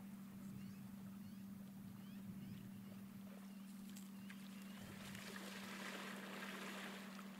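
Kodiak brown bear lunging into a shallow creek, splashing water for a couple of seconds starting about five seconds in. A steady low hum runs underneath, with a few faint high chirps in the first half.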